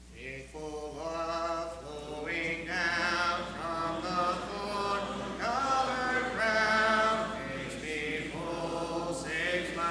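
Church congregation singing a hymn a cappella, many voices together with no instruments, the singing beginning right at the start.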